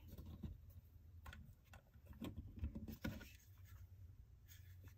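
Faint clicks and rubbing of small LEGO plastic pieces being handled and pressed together, over a low steady hum.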